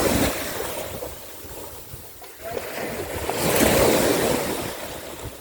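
Sea waves washing onto the shore, with wind buffeting the microphone; one wave swells up loudest about three and a half seconds in, then fades.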